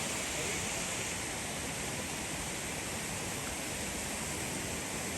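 Waterfall close by: a steady, even rush of falling water.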